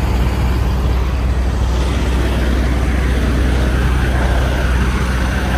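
Diesel semi-truck engine idling: a steady low rumble with a broad hiss over it.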